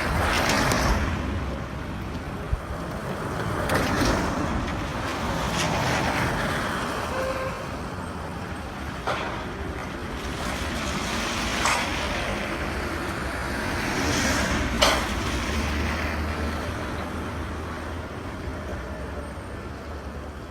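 Street traffic: vehicles passing one after another, each swelling and fading, with a few sharp clicks or knocks in between, the loudest a little before the three-quarter mark.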